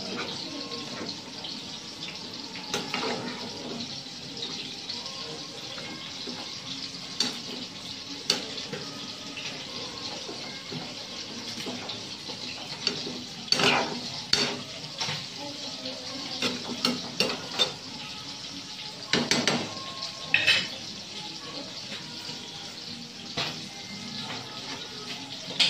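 A pan of vegetables in coconut milk simmering with a steady hiss while a utensil stirs it, scraping and knocking against the pan several times, loudest a little past halfway and again about three-quarters through.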